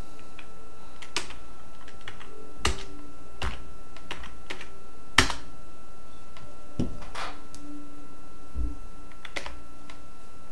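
Irregular computer keyboard and mouse clicks, about eight separate taps spread unevenly, over a faint steady high-pitched tone.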